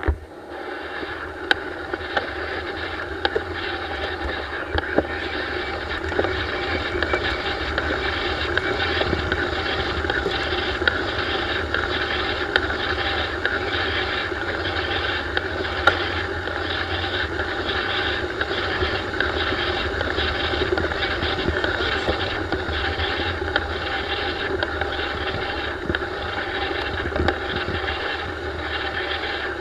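Steady wind rush and rolling noise picked up by a race motorcycle's onboard camera, with a low hum underneath and faint regular ticks; the engine is not being revved, its rev counter near the bottom of the scale.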